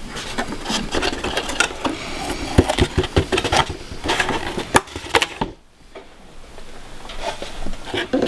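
Foam-board model wing being handled and rubber-banded onto its wooden dowel mounts: a dense run of rubbing, scraping and sharp clicks that drops away about five and a half seconds in, with a few more clicks near the end.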